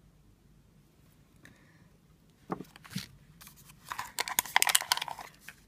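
Hands handling a plastic toy blind-pot cup and its crinkly plastic packaging. A couple of knocks come about two and a half seconds in, then a second or so of dense crinkling and rustling.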